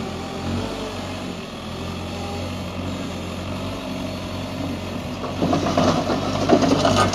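Hidromek 62SS mini backhoe loader's diesel engine running at a steady idle, with a louder, busier stretch of machine noise rising about five and a half seconds in.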